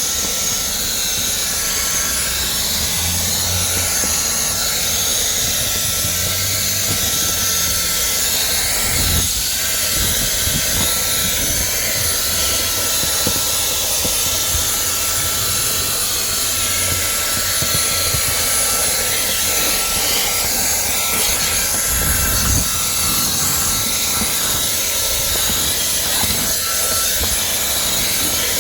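Cordless handheld vacuum running steadily, with a thin, steady high whine over the rush of air.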